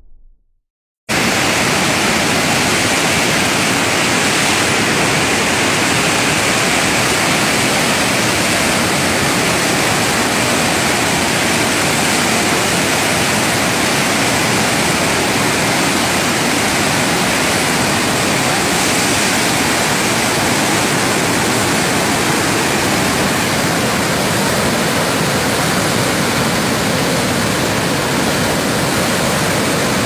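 Kaveri River rapids in high flow: muddy water rushing and churning over rocks in a loud, steady rush that starts abruptly about a second in.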